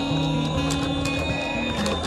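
Music: a simple electronic melody of held low notes changing pitch in steps, with sharp clicks running through it.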